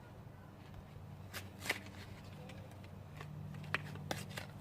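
A light bulb being taken out of its packaging: scattered clicks and rustles of handling, with a steady low hum underneath.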